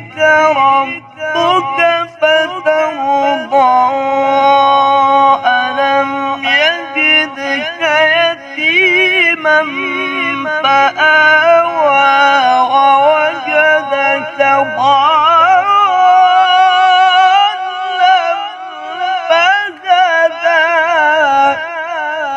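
A man's voice chanting in the melismatic Qur'an-recitation style of a qari, as a long-breath exercise. He sings long, barely broken phrases full of quick ornamental turns and vibrato, and the pitch steps up about fifteen seconds in.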